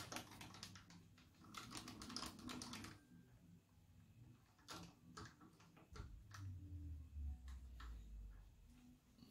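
Faint, quick clusters of light metal clicks and taps as small aluminium workpieces are handled and seated in a steel milling-machine vise, then scattered single taps, with a brief low hum a little past halfway.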